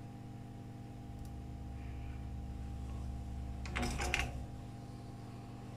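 Steady low electrical hum, with a short cluster of small clicks and scrapes about four seconds in as hand tools are handled over a laptop mainboard.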